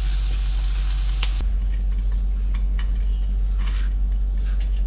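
Japanese egg tofu and oatmeal crumbs sizzling in a pan as a spatula stirs them, cutting off about a second and a half in. After that come a few light clicks and taps over a steady low hum.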